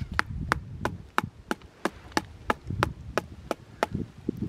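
A metal maple sap tap (spile) struck again and again with a dead tree branch to drive it into the trunk, in place of a hammer: a steady run of sharp knocks, about three a second.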